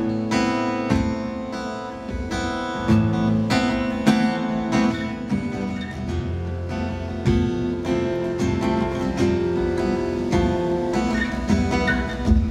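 Acoustic guitar strummed in a live instrumental passage of a song, with chords ringing on over the strokes.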